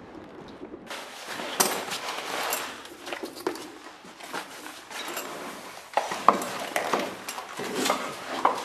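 A handbag and its packaging being handled: irregular rustling with several sharp clicks and knocks, the loudest about six seconds in.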